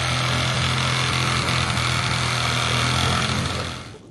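An engine running steadily with a low hum, fading out near the end.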